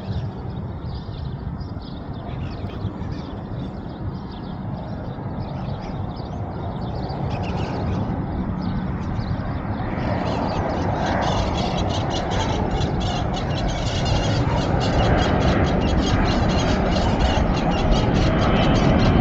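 Boeing 777 airliner on landing approach: a broad jet-engine rumble growing steadily louder as it comes closer.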